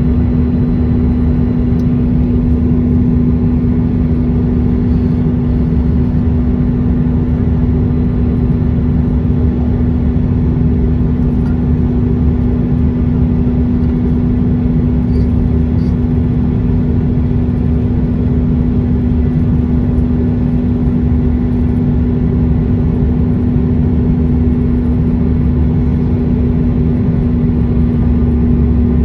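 Jet airliner cabin noise: a steady low rumble of engines and airflow with a constant hum, unchanging throughout.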